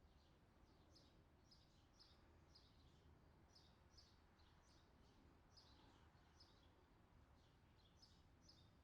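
Faint bird chirping: short, high, falling notes repeated about twice a second over a low, steady background hum.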